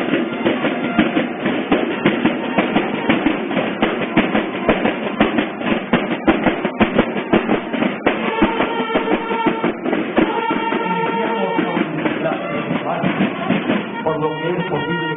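Drum and bugle corps playing a march: snare and bass drums beating a fast cadence, with bugles coming in on long held notes from about eight seconds in.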